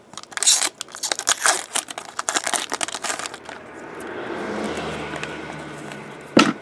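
Trading-card pack wrapper crinkling and cards being flicked through by hand: a quick run of crackles for the first few seconds, then a softer rustle, and a sharp click near the end.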